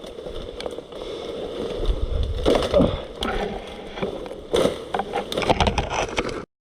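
Irregular rustling and crunching of a player moving through brush on foot, with sharp clicks of gear and twigs, which cuts off abruptly near the end.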